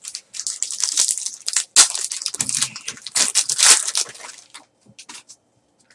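Foil trading-card pack crinkling and tearing as it is ripped open, then the cards inside sliding against each other as they are handled. The crackling is irregular and dense for about four seconds, then fades to a few faint ticks.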